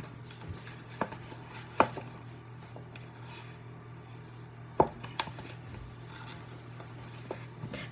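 Four sharp knocks of hard objects striking one another, like kitchenware tapped against a bowl or countertop, spaced unevenly over a steady low hum.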